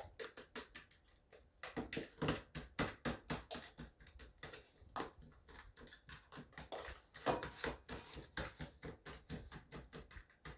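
A utensil clicking and tapping against a bowl in quick, irregular strokes, several a second, as banana, egg and sugar are mixed together.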